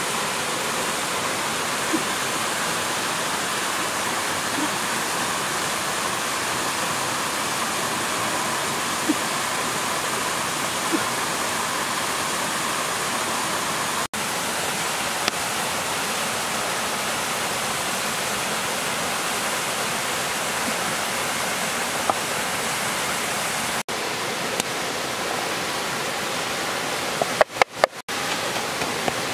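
Steady rushing of a river running over rocks, with a few sharp knocks near the end.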